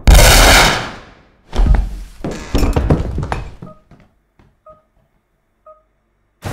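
A very loud pistol shot with a ringing, echoing tail, then a heavy thud about a second and a half in and a clatter of breaking and clinking. Three faint short beeps follow, about a second apart.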